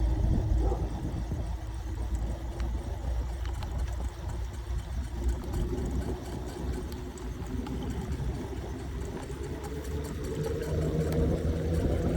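Riding an 800 W electric scooter: a steady low rumble of wind and road noise, with a motor hum that climbs in pitch over the second half as the scooter speeds up.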